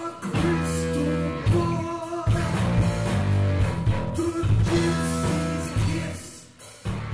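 Heavy metal band playing at a sound check: distorted electric guitar, bass guitar and drums.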